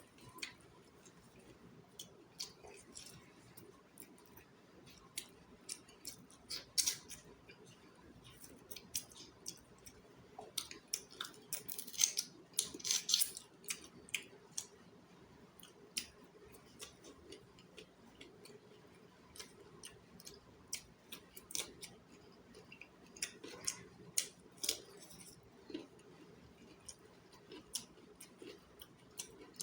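Close-miked eating of chicken feet curry: a run of short wet clicks and crackles from chewing and biting the feet, with louder crunching bouts about twelve seconds in and again around twenty-four seconds.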